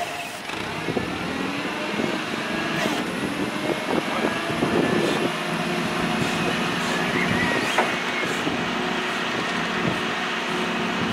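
Komatsu forklift's engine running steadily at idle, with a few light knocks.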